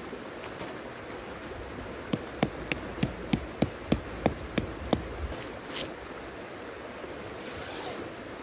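About ten sharp hammer-like knocks in a quick, even rhythm of about three a second, over the steady rush of a river.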